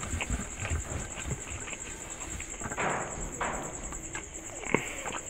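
Fingers scraping and gathering leftover rice and curry on a metal plate, with light clicks of fingertips and nails on the metal and a longer scrape about three seconds in. Then a handful is eaten by hand, with soft mouth and chewing sounds.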